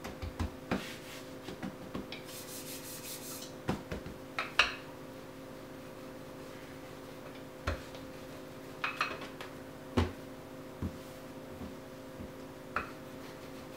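Rolling pin rolling out pie-crust dough on a floured countertop: soft irregular rubbing and scraping with scattered light knocks of the pin, over a faint steady hum.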